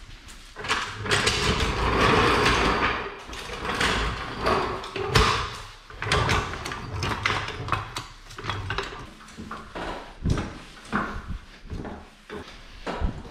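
Floor jack being rolled across a concrete floor, its wheels scraping and rattling, with repeated clanks and knocks as it is pushed into place under the car.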